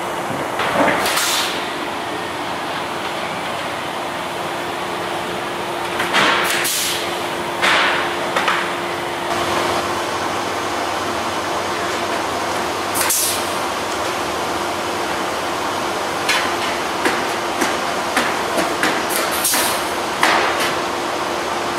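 Pneumatic pop-rivet guns pulling blind aluminium rivets into the wing ribs and spar: short sharp bursts of air and snaps, spaced a few seconds apart, then a quick run of shorter clicks in the last few seconds, over a steady shop hum.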